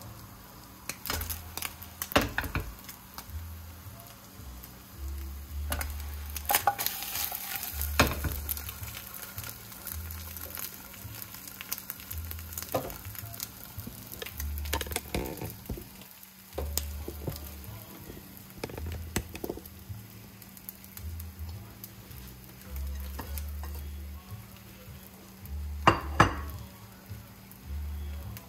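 Beaten egg for a Korean rolled omelette sizzling in a frying pan, with repeated clicks and knocks of a utensil against the pan as it is worked, a sharper knock near the end.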